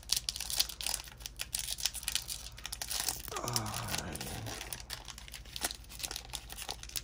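Foil wrapper of a Bowman baseball card pack being torn open and crinkled, a dense run of crackles.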